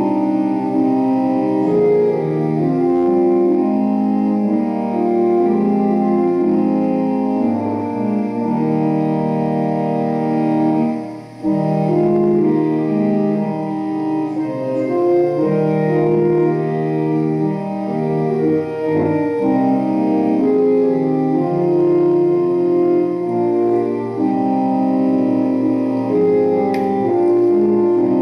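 Church organ playing a hymn in slow, held chords that change every second or so, with a brief break about eleven seconds in.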